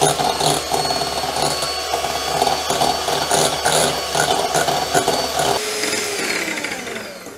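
KENT Smart Chef 150 W electric hand mixer running steadily, its twin beaters whipping chilled fresh cream in a glass bowl. Near the end the motor whine slides down in pitch and fades as it winds down.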